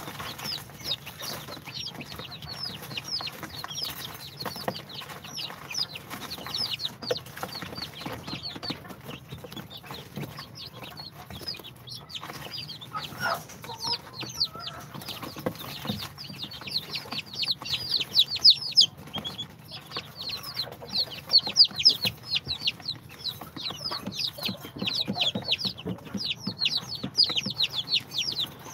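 A brood of day-old İspenç, Brahma, bantam Cochin and Sultan chicks peeping nonstop, many short, high, falling cheeps overlapping one another. The peeping grows louder and busier a little past halfway.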